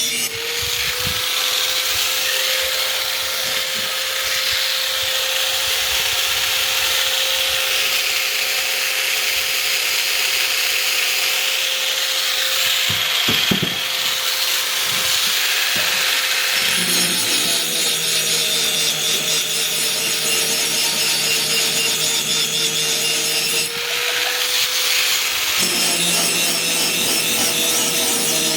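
Powered grinder sharpening an axe: a steady motor whine under a continuous harsh hiss of the blade against the abrasive. About two-thirds of the way through a lower hum joins in, as if the pressure on the blade changes.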